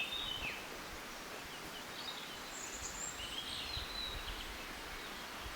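Small woodland birds singing and calling: short high chirps and a few brief trills from more than one bird, over a faint low rumble.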